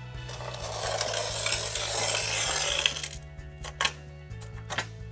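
Steel-wheel glass cutter scoring a line across a pane of glass: a gritty, hissing scratch for about two and a half seconds, then three sharp clicks. Background music with a stepping bass line runs underneath.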